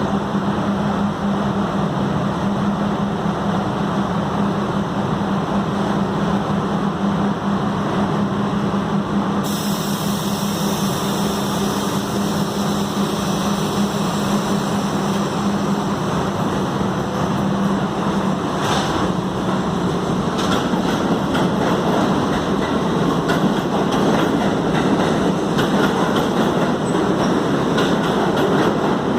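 New York City subway train at a station: a steady low hum with a hiss joining about a third of the way in. About two-thirds through, rapid wheel clicks over the rail joints set in as the train pulls out and grows louder.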